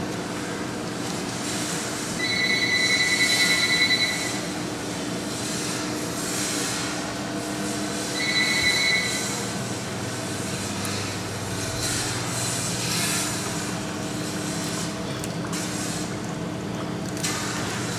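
Steady hum of machinery in a cheese-making room, with two brief high-pitched squeals: one about two seconds in lasting about two seconds, and a shorter one about eight seconds in.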